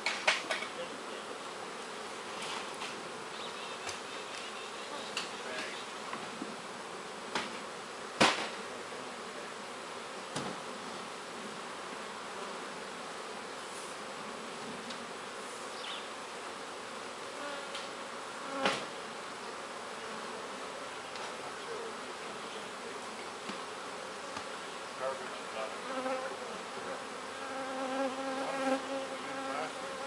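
Honeybees buzzing around the hives in a steady hum, with a few sharp knocks, the loudest about eight seconds in. Near the end a louder, steadier buzz rises as bees fly close.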